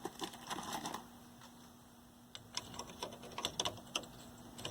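Light, irregular clicks and scrapes of a pry tool working under a plug-in circuit module in a vintage TV chassis, mostly in the second half, over a faint steady hum.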